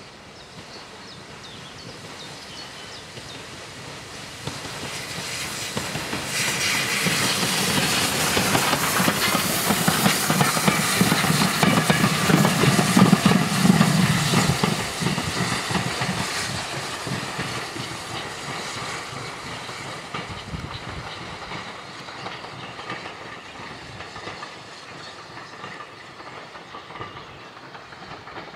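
Terrier tank locomotive no.55 'Stepney', an 0-6-0T, running past with an observation car, its wheels clattering over the rail joints. The train grows louder, is loudest about halfway through as it passes, then fades as it runs away.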